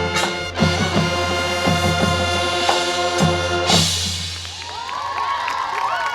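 Marching band of brass and drumline playing loudly, with sustained chords and drum hits that build to a big accented hit about four seconds in and then cut off. Softer, overlapping tones sliding up and down follow.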